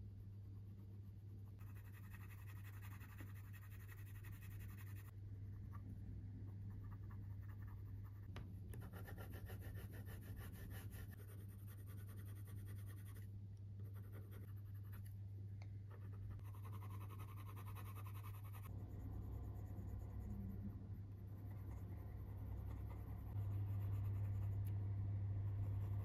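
Faber-Castell colored pencil scratching across paper in stretches of quick shading strokes. Under it runs a steady low hum that gets louder near the end.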